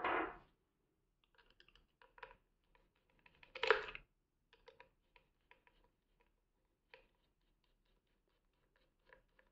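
Small screwdriver unscrewing a screw from the plastic radiation shield of a weather-station temperature and humidity sensor: scattered faint clicks and scrapes of the tip on the screw and plastic. There are two louder handling bumps, one at the very start and one about four seconds in.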